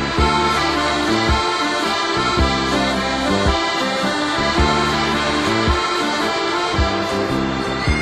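Background music: sustained chords over a steady beat, about one low thump a second.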